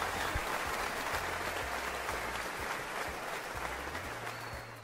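Crowd applause, fading out gradually toward the end.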